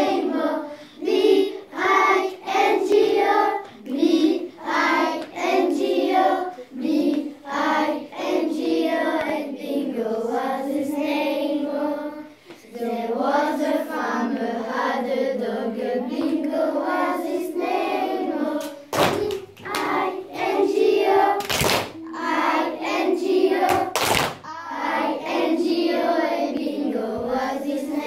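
A group of children singing a song together in unison. Three sharp thumps cut through it about two-thirds of the way in.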